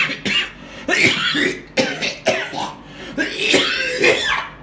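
A man coughing hard in several harsh fits: a severe cough.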